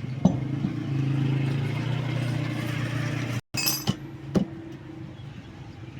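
A steady low mechanical hum runs for about three seconds and cuts off abruptly. A short while later come two sharp metallic clinks, like tools or wheel parts knocking together.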